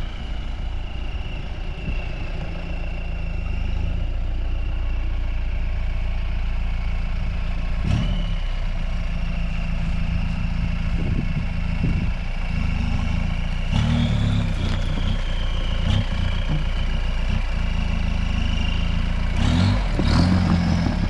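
Mahindra Roxor's engine running at low speed as it crawls over a dirt mound, the revs coming up twice as it climbs, with a few short knocks along the way.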